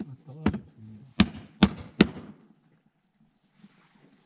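Hands slapping a round of taguella bread dough between the palms to flatten it: four sharp slaps in the first two seconds, then quiet.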